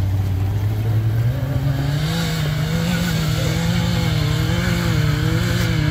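Side-by-side UTV engine working under load climbing a steep gravel hill, its pitch stepping up about a second in and then wavering up and down as the throttle is worked.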